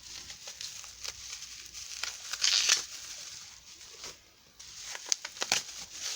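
Bubble wrap being unwrapped and handled: irregular plastic crinkling and rustling with sharp crackles, loudest about two and a half seconds in, dropping off briefly near four seconds before more crackles.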